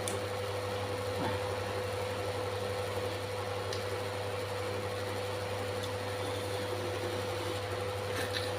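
Steady background hum with a constant higher tone above it, and a few faint soft clicks, about a second in, near the middle and near the end.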